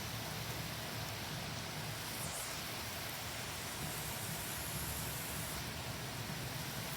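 Heavy rain coming down hard, a steady, even hiss with no letup.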